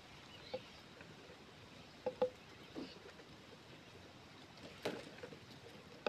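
Heron nestling giving a few short, scattered calls: one about half a second in, a quick pair about two seconds in, and others near three and five seconds, over a faint steady hiss.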